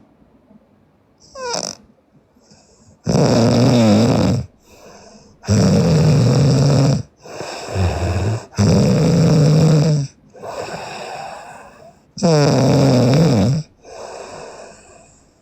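A sleeping woman snoring loudly: four long snores about every three seconds, with quieter breaths between them.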